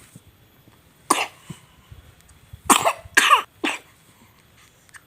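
A baby coughing: one cough about a second in, then three more in quick succession a couple of seconds later.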